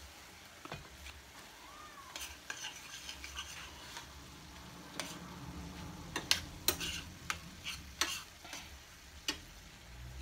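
Ground turkey and tomato sauce sizzling in a skillet while a metal spoon stirs it, with a run of sharp clinks and scrapes of the spoon against the pan in the second half.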